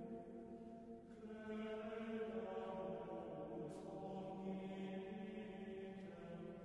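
Soft, slow background music in a chant-like texture: sustained chords held for seconds at a time, moving to a new chord about a second in and again near the middle.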